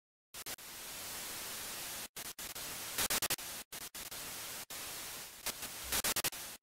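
Static hiss sound effect that keeps cutting out abruptly and stutters, with louder crackling bursts about three seconds in and again near the end.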